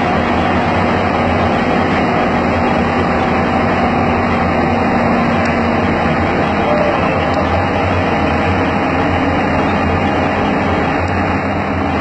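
Diesel engine of a MAN/DUEWAG VT 610 diesel multiple unit running loud and steady.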